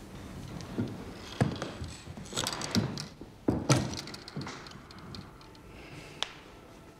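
A scattering of irregular clicks and knocks, bunched into a few clusters in the first half, then one sharp click about six seconds in.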